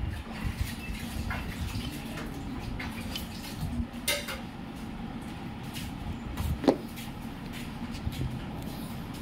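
Scattered clicks, clinks and knocks of metal tools and engine parts being handled during scooter engine reassembly, with one sharper knock about two-thirds through, over a steady low hum.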